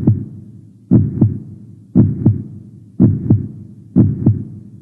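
Heartbeat sound effect: a steady lub-dub, two low thumps about a third of a second apart, repeating about once a second.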